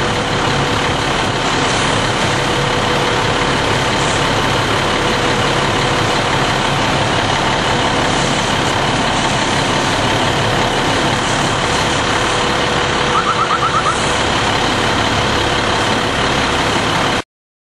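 Heavy truck engine idling steadily, with a quick run of about six short beeps about thirteen seconds in. The sound cuts off suddenly near the end.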